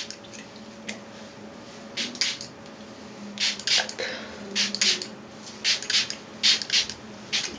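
Hand-held pump spray bottle filled with plain water, spritzing onto hair in short hisses, about a dozen sprays, mostly in quick pairs or threes with gaps of about a second between groups.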